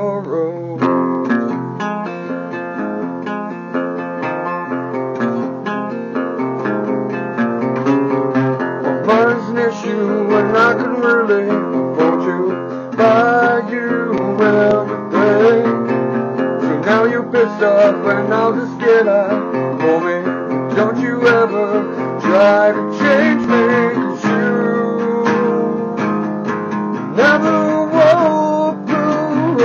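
Acoustic guitar strummed steadily, with a man's voice singing along.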